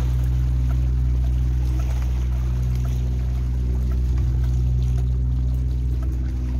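A boat engine drones steadily at a low, even pitch, without rising or falling.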